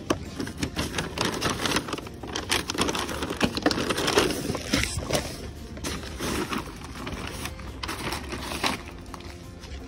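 Brown paper grocery bags rustling and crinkling as they are handled and lifted out of a plastic delivery crate, with irregular light knocks and clicks.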